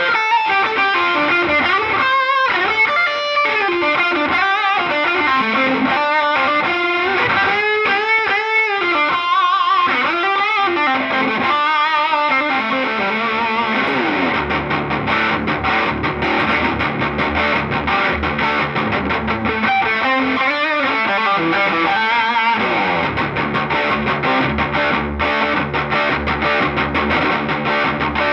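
2019 Gibson Les Paul Classic electric guitar played through an overdriven amp. For the first half it plays lead phrases with bent, wavering notes; from about halfway on it plays palm-muted chugging on the low strings.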